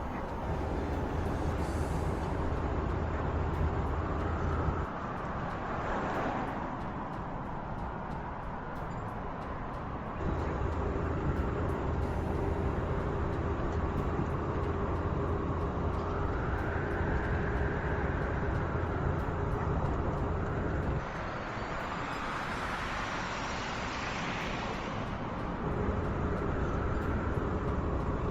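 Volkswagen ID. Buzz electric van driving: steady road and tyre noise with a low hum, broken three times by a swoosh of the van passing by. The sound changes abruptly several times where clips are cut together.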